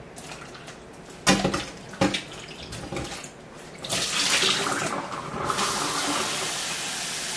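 Tomatillos being rinsed in a metal bowl at a stainless-steel sink: a couple of sharp clunks from the bowl about a second and two seconds in. About four seconds in, water is poured out of the bowl into the sink with a loud rush, then the tap runs steadily.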